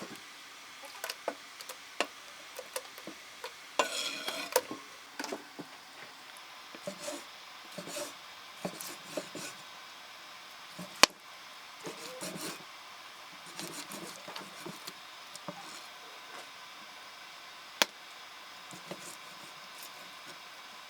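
Cooking utensils and dishes being handled during food preparation: irregular clinks, knocks and rubbing, with two sharp clicks, one about eleven seconds in and one near the end.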